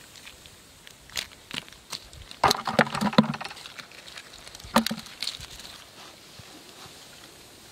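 Dry, caked mud and clay clods being broken and crumbled by hand: scattered crackles and taps, busiest about two and a half to three and a half seconds in, with another sharp crack near five seconds.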